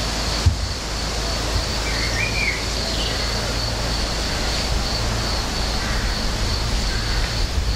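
Garden ambience: a steady low rumble and hiss with a thin constant high tone, and a bird chirping briefly a couple of times about two to three seconds in.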